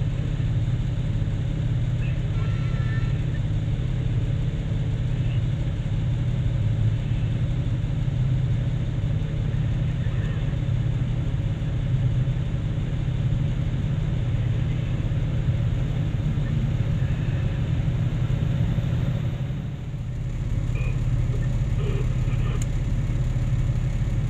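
Heavy diesel engines of mining equipment running with a steady low drone. The level dips briefly about twenty seconds in.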